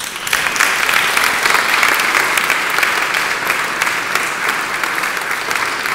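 Audience applauding: many hands clapping together, breaking out suddenly and holding steady.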